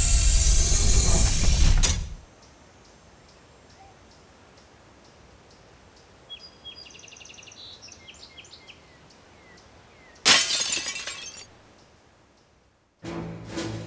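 Cartoon crash sound effects. The loud noise of a crash landing cuts off about two seconds in, and faint chirping follows. About ten seconds in comes a short, loud smash like breaking glass.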